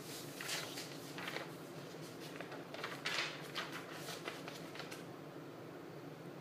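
A sheet of paper rustling as it is handled, in a few short bursts over the first four and a half seconds, over a steady low hum.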